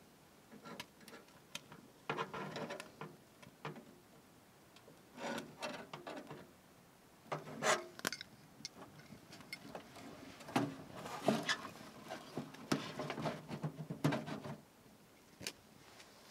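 A burning feather stick scraping and rubbing against dry twigs as it is pushed into a tent wood stove's firebox, in irregular bursts of wood rustling and crackling as the kindling catches.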